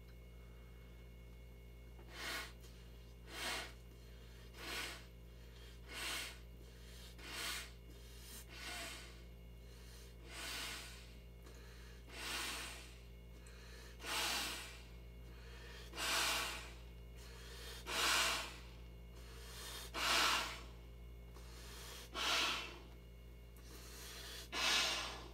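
A person blowing up an inflatable vinyl cooler by mouth: heavy breaths one after another starting about two seconds in, short at first and getting longer, louder and further apart as it goes on.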